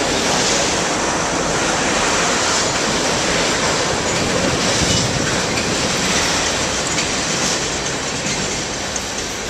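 Freight train of loaded tank cars rolling past at close range: a steady rumble and rush of steel wheels on rail, easing slightly near the end as the last car goes by.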